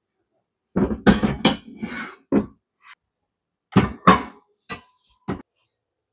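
Stainless steel pots with glass lids being set down on wire shelf racks: a quick cluster of metal clanks and clinks, then a few separate knocks, one of them leaving a brief ringing tone.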